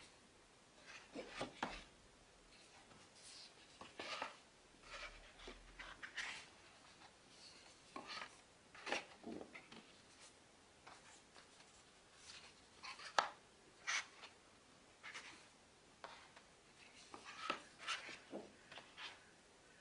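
Stiff paper pages of a photobook being handled and turned: soft rustles and slides with light taps, and a couple of sharper clicks about two-thirds of the way through.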